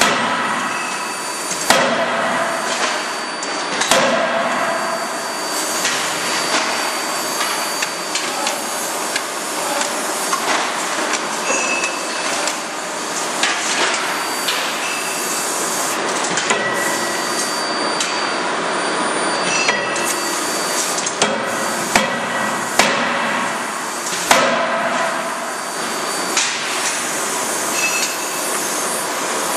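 CNC hydraulic die forging hammer striking a red-hot steel billet in a connecting-rod die: heavy sharp blows at uneven intervals, a few near the start and a cluster about two-thirds of the way through, over a steady loud forge-shop machine din.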